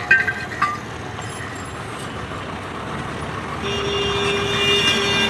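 Steady truck and road traffic noise, with a couple of short clicks about half a second in. A steady, pitched, horn-like tone starts in the last second and a half.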